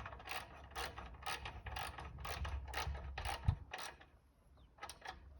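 Wrench working a nut on a chop saw's blade guard: a steady run of metallic clicks, about three to four a second, with a low thump about three and a half seconds in and a couple more clicks near the end.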